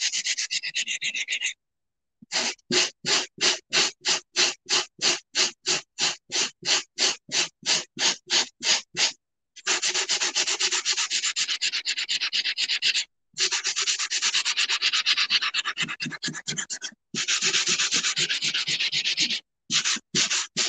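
Sanding block rubbed by hand back and forth over a ceramic tile coaster, scrubbing off the printed wording on its surface. Fast scraping strokes, about four a second through the middle, broken by a few short pauses.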